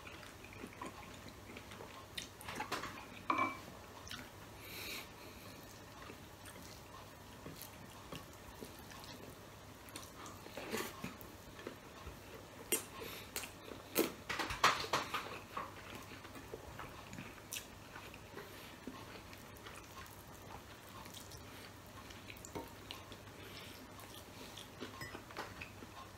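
Close-up eating sounds: metal spoon and fork clinking and scraping on a ceramic plate, with chewing of fried rice and sausage. The clinks come scattered, with the loudest run of them about two thirds of the way through.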